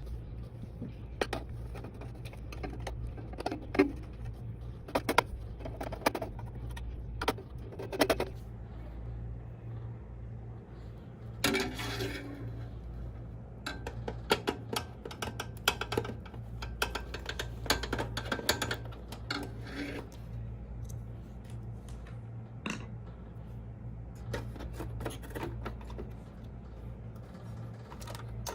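Irregular clicks, taps and clatter of small metal and plastic computer parts being handled, with a short scraping rattle about twelve seconds in, over a steady low hum.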